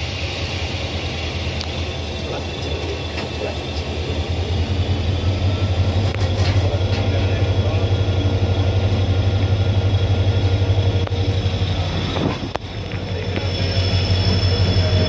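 Train locomotive running with a steady low drone that grows louder a few seconds in, dips briefly near the end and then rises again.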